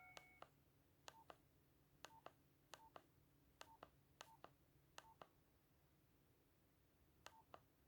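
Faint keypad presses on a Nokia C3 mobile phone, eight in all. Each is a click on press and a click on release, with a short beep between. They come about one every 0.7 seconds, then there is a pause of about two seconds before one last press near the end.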